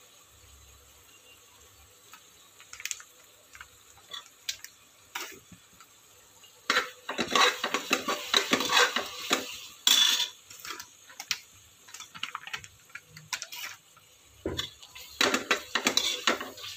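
Steel spoon scraping and clinking against the inside of a pressure cooker as a thick masala is stirred. Scattered taps at first, then a bout of brisk stirring about seven seconds in and another near the end.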